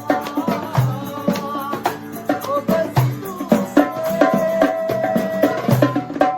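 Background music with a steady percussion beat, a melodic line and regular deep bass hits.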